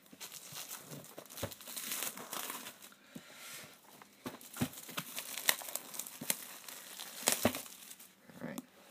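Plastic shrink-wrap being pulled and peeled off a boxed DVD set: continuous crinkling with several sharp, loud crackles.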